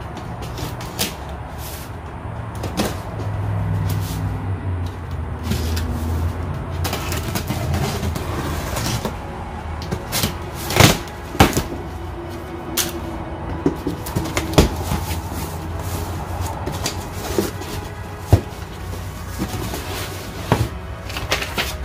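Cardboard shipping box being opened by hand: packing tape peeled off and the flaps pulled open, with irregular scrapes, rustles and sharp knocks, loudest about eleven seconds in.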